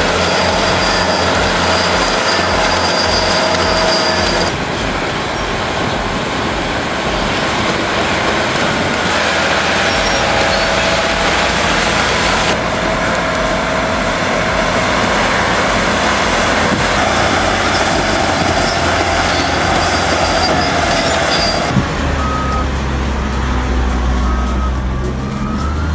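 Heavy diesel earthmoving machinery working, with steady engine noise and whining tones that change abruptly every few seconds from one clip to the next.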